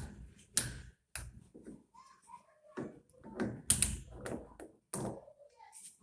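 Irregular sharp taps and clicks of hard plastic knocking, as a white PVC connector fitting is handled and worked into the wall of a plastic water tank.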